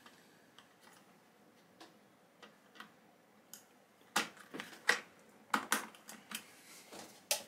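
Hands working at a bare PC motherboard: a few faint clicks, then from about four seconds in a quick run of a dozen or so sharp clicks and taps.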